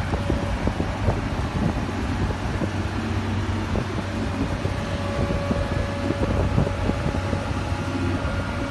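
Komatsu amphibious excavator's diesel engine running steadily, with a low hum and a faint whine partway through.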